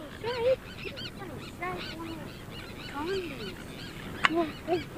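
A seabird colony calling: many birds' short cries overlap, each rising and falling in pitch. A single sharp knock sounds about four seconds in.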